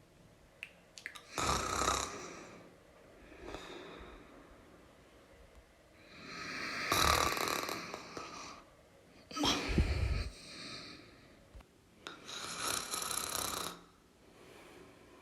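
A person snoring: four loud snores a few seconds apart, two of them with a deep low rumble, and quieter breathing in between.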